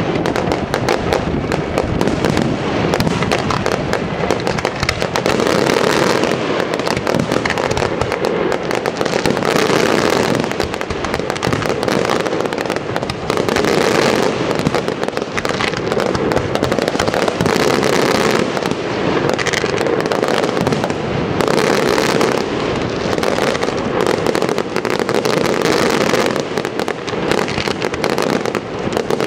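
Fireworks display: aerial shells bursting in a dense, near-continuous barrage of overlapping bangs.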